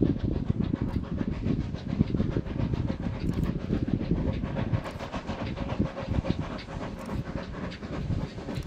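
South African Railways Class GMAM Garratt articulated steam locomotive working hard, its exhaust beating in a fast, steady rhythm.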